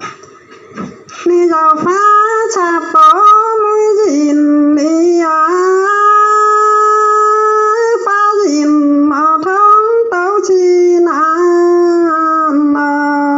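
A single high voice singing a slow folk song solo, in long held notes joined by short pitch slides, one line of a call-and-response duet. The singing starts about a second in.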